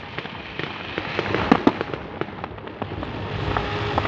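Fireworks display: a run of bangs and crackling star bursts, many in quick succession, the sharpest about one and a half seconds in.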